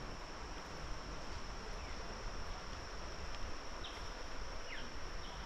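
Insects droning, one steady high-pitched note, with a few short bird chirps in the second half over a steady background hiss.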